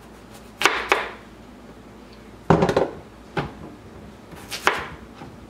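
Potatoes being cut in half with a knife on a plastic cutting board, a few sharp knocks of the blade hitting the board, with clunks as potato halves drop into a stainless steel pot.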